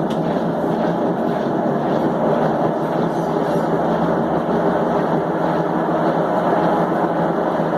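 Consul Maré 7.5 kg top-loading washing machine on its spin cycle, making a loud, steady mechanical noise. The machine spins with far too much noise, a fault the owners expect to fix by replacing a part.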